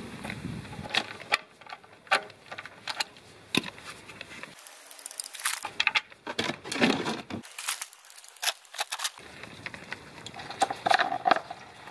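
Irregular clicks, taps and light metallic rattles of hands and tools working at the oil sump drain plug under a car during an oil change.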